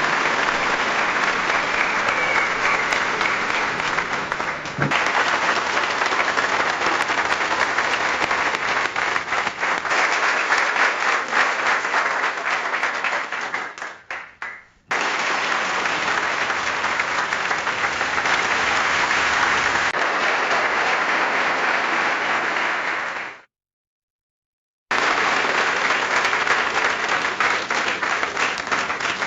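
Crowd applause, four separate stretches back to back. The second thins out to a few scattered claps and cuts off about halfway through, the third fades out, and after a short silence a fourth begins.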